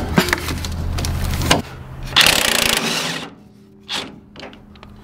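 Cordless impact wrench on a long extension, hammering in a short loud rattle about two seconds in as it breaks loose an 18 mm strut top-mount nut. Light clicks of the socket and extension come before it, and a single click follows.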